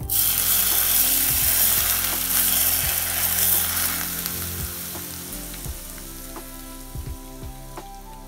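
Hot cooking oil poured from a steel kadai onto raw marinated mutton, sizzling loudly the instant it hits and then dying away over several seconds.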